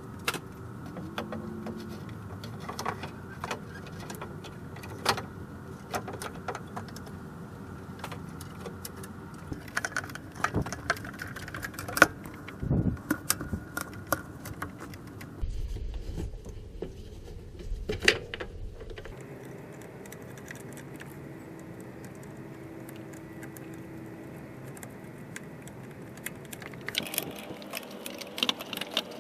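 Scattered metallic clinks, clicks and knocks of hand tools and parts being handled while working on a pickup's radiator and its transmission cooler line fittings, over a faint steady hum.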